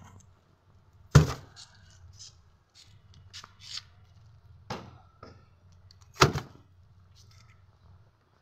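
Whole raw fish being set down one at a time in a plastic tub: dull thuds of fish landing on the plastic, the loudest about a second in and about six seconds in, with lighter knocks and handling noises in between.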